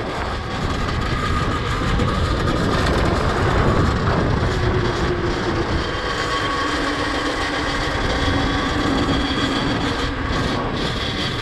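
Custom electric pit bike with a QS Motor 2000 W mid-drive being ridden along a paved path: a steady rush of wind and road noise, with a faint motor whine that slowly shifts in pitch.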